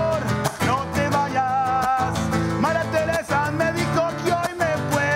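A man sings a song with vibrato on held notes while strumming a nylon-string acoustic guitar.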